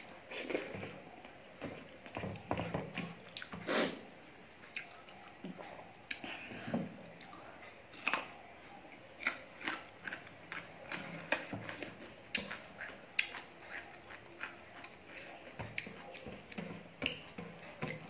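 Close-up eating sounds of someone eating rice and curry by hand: chewing with many short, irregular wet smacks and clicks.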